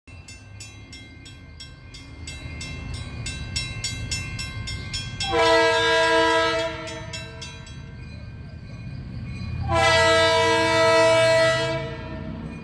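Grade-crossing warning bell dinging rapidly while the gates come down, stopping about five seconds in. Then a diesel locomotive's multi-tone air horn sounds two long blasts for the crossing, over the low rumble of the approaching engine.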